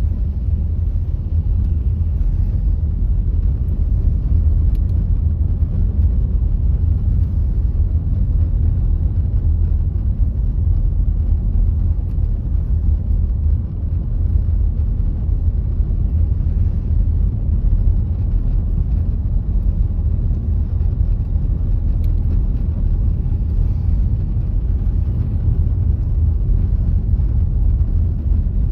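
A car driving along at a steady pace: a constant low rumble of engine and tyres on the road.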